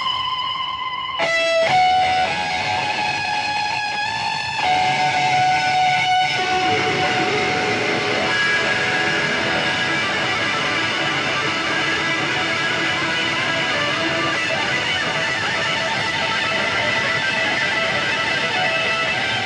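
Electric guitar played live as a solo melody: long held notes that change a few times in the first six seconds, then a thick ringing sound held through the rest.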